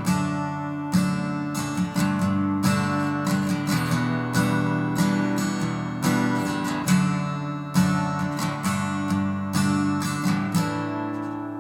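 Acoustic guitar strumming chords in a slow, steady pattern, the last chord left to ring out and fade near the end.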